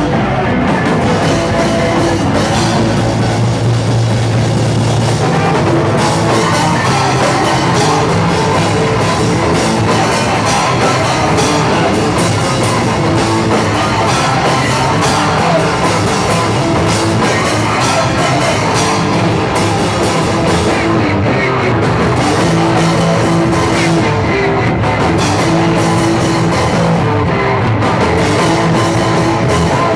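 Hardcore punk band playing live at full volume: a fast, driving drum kit and electric guitars through Marshall amplifiers, without a break.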